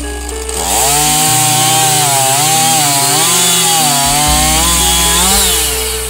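Gas chainsaw revving up about half a second in and cutting into an oak log, its engine pitch wavering up and down under load, then dropping back near the end. Background music plays underneath.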